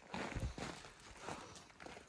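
Faint, uneven footsteps of a person walking, with soft scuffs and thuds.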